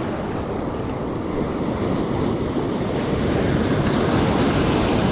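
Surf breaking and washing up the beach close by, a steady rushing that swells a little about three seconds in, with wind buffeting the microphone.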